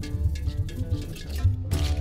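Background music with a steady percussive beat, ending on a loud crash near the end that rings on.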